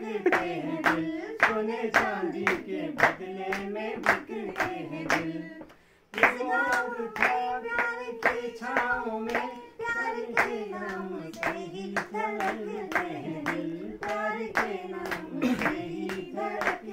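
A small group singing a song together while clapping their hands in time, about two claps a second. The singing and clapping break off briefly about six seconds in, then carry on.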